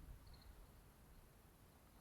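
Near silence, with one faint insect chirp of a few quick pulses in the first half second.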